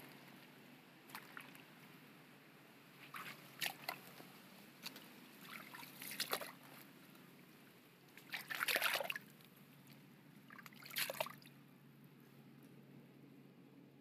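Water sloshing and splashing in short bursts a few seconds apart, the loudest about nine seconds in.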